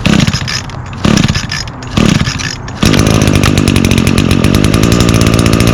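Echo SRM225 string trimmer's 21cc two-stroke engine being pull-started with its i30 recoil starter: three short bursts about a second apart, each falling in pitch, then it catches suddenly about three seconds in and runs steadily.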